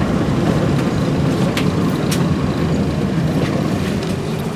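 A 1978–1981 UTDC/Hawker Siddeley CLRV streetcar running on its rails, heard from inside as a steady low rumble, with two sharp clicks about a second and a half and two seconds in.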